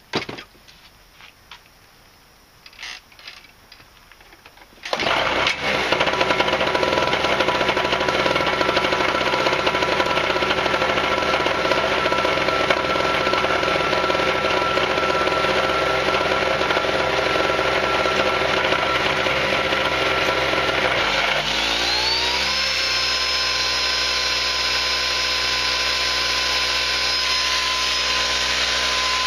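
A few light knocks, then about five seconds in a small red portable generator's engine starts and runs steadily. About twenty-one seconds in, its pitch rises into a higher whine over about a second and holds steady.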